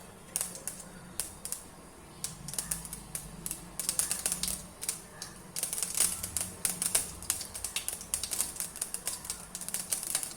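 Mustard seeds popping and spluttering in hot oil as they are tempered: scattered sharp pops that start sparse and come thick and fast from about halfway in.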